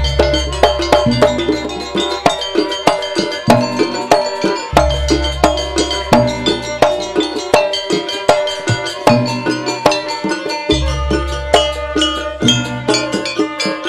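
A Banyuwangi jaranan gamelan ensemble playing a fast, dense pattern of drums and struck metal percussion. Deep strokes that ring on, fitting the ensemble's large hanging gong, come at the start, about five seconds in and about eleven seconds in.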